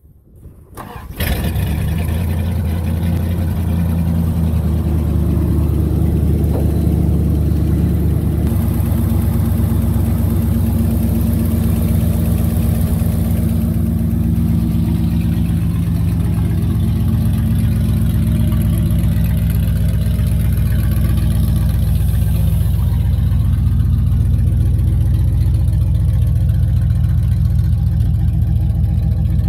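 Dodge pickup's engine starting about a second in, then idling steadily. Its idle note changes once, about eight seconds in.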